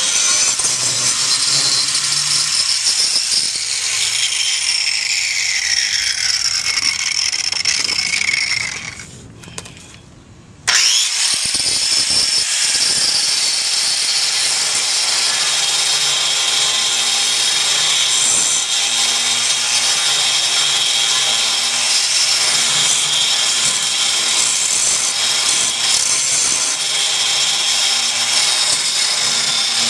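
Angle grinder grinding on steel, grinding a frame rivet down flush with the truck frame to free the spring bracket. Its pitch sinks over a few seconds, it cuts out briefly about a third of the way in, then starts again suddenly and grinds steadily on.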